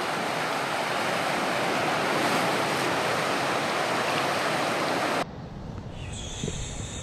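Sea surf washing on a rocky shore: a steady rushing that cuts off abruptly about five seconds in. After that comes a quieter low rumble of wind on the microphone, with a brief high whistle-like tone near the end.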